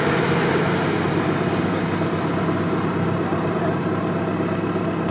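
Off-road SUV's engine running steadily at moderate revs, with no sudden changes.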